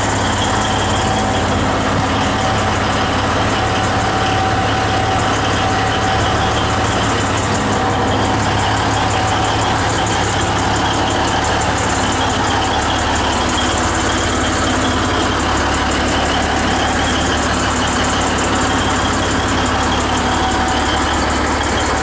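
Diesel locomotive of the Alishan Forest Railway idling steadily at close range: a constant low engine hum with a few steady higher tones above it.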